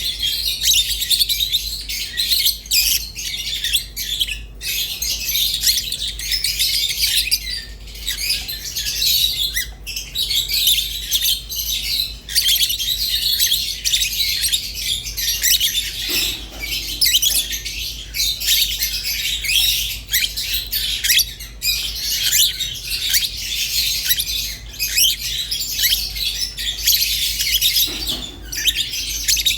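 Rosy-faced and Fischer's lovebirds chirping without pause, many high, rapid calls overlapping.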